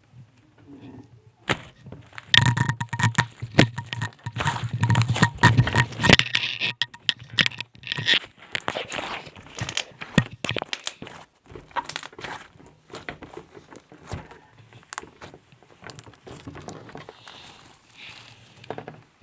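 Slime being squished and stretched by hand, giving dense crackling and popping clicks that are thickest a couple of seconds in, then thin out.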